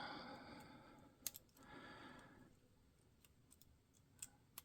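Faint, scattered small clicks of lock picks working the pins inside a PacLock 90A Pro padlock.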